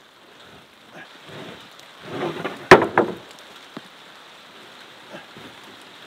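A wooden roof board scraping across log rafters, then dropping into place with one sharp clack, followed by a few lighter knocks of wood on wood.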